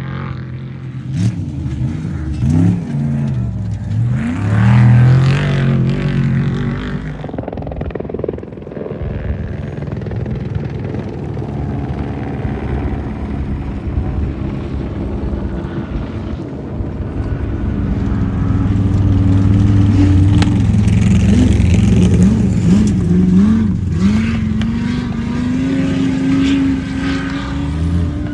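Off-road trophy trucks' race engines revving up and down in quick swings as the trucks run past. One passes early on; a second comes on about halfway and grows louder to the end.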